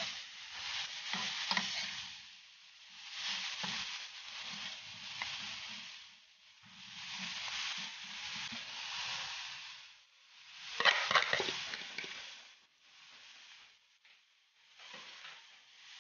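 Bitter melon slices sizzling in an aluminium frying pan as a wooden spatula stirs and scrapes them, the frying hiss swelling and falling with each round of stirring. The loudest stretch, with sharp clicks and scrapes, comes about eleven seconds in, and the sizzle is fainter near the end.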